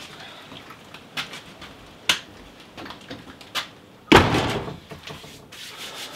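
A wooden garage door being opened and shut: a few sharp clicks and knocks, then a loud, heavy thud about four seconds in as the door closes.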